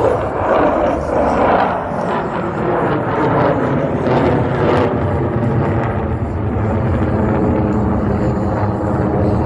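Airplane engine noise as an aircraft flies past: a loud rushing drone that settles into a steady humming tone over a low rumble.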